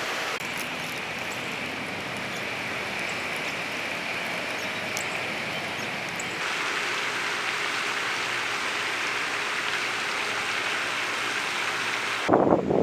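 Steady rushing of wind outdoors, a little louder from about halfway. Near the end, gusts start buffeting the microphone in loud, irregular bursts.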